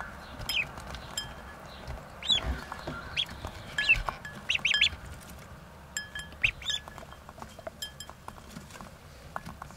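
Ducklings peeping: short, high calls that fall in pitch, every second or so and sometimes in quick runs. Faint clicking underneath as they peck at their feed.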